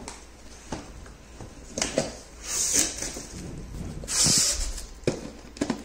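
Cardboard boxes being handled: a product box shifting and scraping against the inside of its cardboard shipping carton, with a few knocks and clicks. There are two longer scraping rubs, about two and a half and four seconds in.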